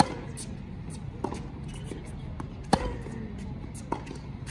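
A tennis rally on a hard court: sharp pops of racket strings striking the ball and the ball bouncing. A loud hit comes at the start and another loud one a little under three seconds in, with fainter knocks in between from the far end of the court.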